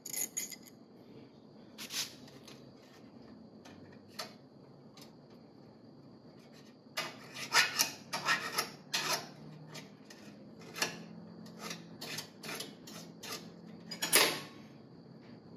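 Small flat hand file scraping across the freshly ground end of a piston ring to take off burrs. A few light clicks come first, then a quick run of file strokes about halfway through, with single strokes after it and a louder one near the end.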